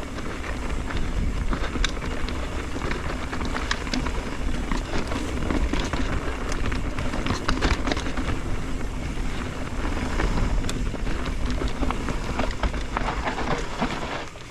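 Mountain bike riding down a dirt trail: steady wind rush on the microphone with tyres rolling over dirt and rock, and frequent sharp clicks and knocks.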